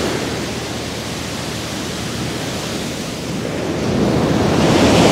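Ocean surf washing up a sandy beach: a steady rushing noise that swells louder over the last second or so as a wave comes in.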